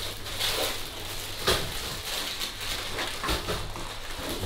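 Foil Pop-Tart wrappers crinkling and rustling in short bursts as the packets are opened and handled, with a sharper crackle about a second and a half in, over a low steady hum.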